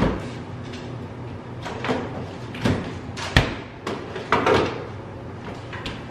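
A refrigerator door opened and shut, with a series of knocks and clacks from things being moved inside it; the sharpest knock comes about halfway through.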